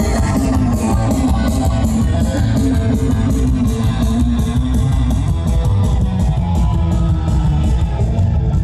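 Rock music with guitar and a steady drum beat, played loud over a stage's loudspeakers.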